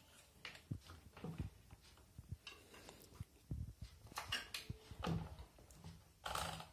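Faint handling sounds: scattered soft clicks and knocks, with a brief louder rustle near the end, as the CRT TV chassis and its wiring are moved and handled.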